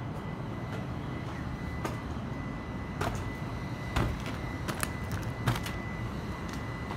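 A few knocks and footfalls on a tower crane's plank-and-steel walkway, the loudest about four and five and a half seconds in, over a steady low rumble and a faint steady high tone.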